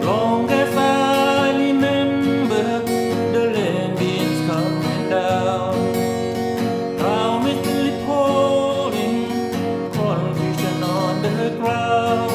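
Acoustic guitar strumming a song accompaniment, with a sung melody line coming in over it in phrases every few seconds.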